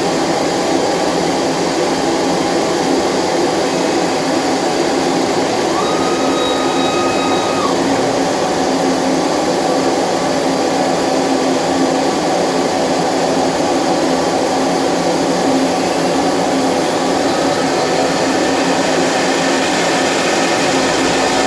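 CNC router vacuum table's vacuum pump running steadily, loud and unchanging, holding the jig down on the table. A brief higher tone sounds about six seconds in.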